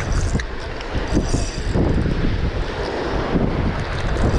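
Wind buffeting the microphone over the surf, with a Penn Slammer 560 spinning reel being cranked to retrieve line.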